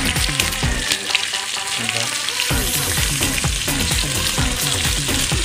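Tuyo (dried salted fish) frying in hot oil in a pan, sizzling and crackling steadily.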